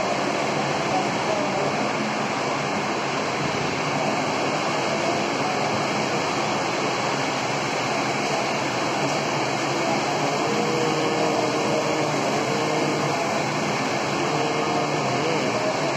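Steady whooshing hum of wall-mounted electric fans running in a large hall, with a faint wavering tone coming and going about two-thirds of the way through.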